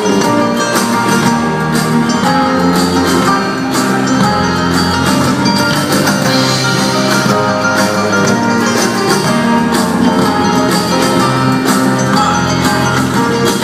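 Instrumental break of a folk-rock song, with guitar playing over a steady beat and no singing.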